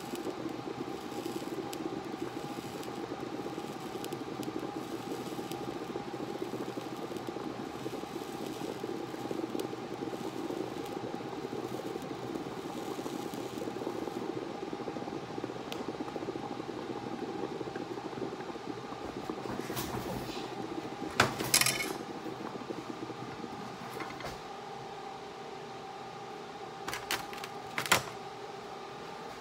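Water boiling hard inside a steel tube heated by a welding arc: a steady bubbling hiss. Later, a few sharp metallic clicks and knocks stand out, the loudest about three quarters of the way in and again near the end.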